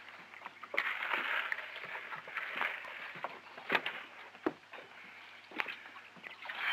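Scattered knocks and thumps from people setting a cooler down and stepping about inside a small motorboat, over the steady hiss of an old film soundtrack.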